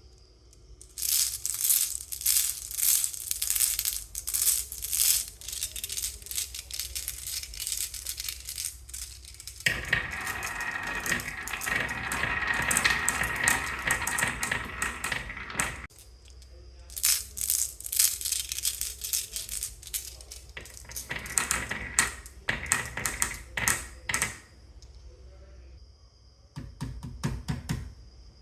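Marbles clattering down a wooden HABA marble run: rapid clicks and clacks as they drop and knock against the track and each other. In the middle there are about six seconds of steady rolling rumble, then the clatter comes back in bursts.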